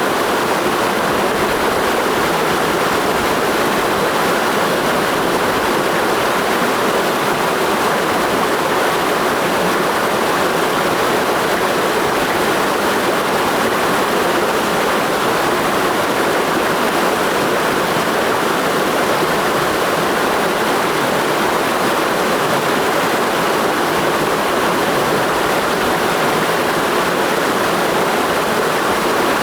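Mountain stream rushing over rocks, a steady, even flow of water.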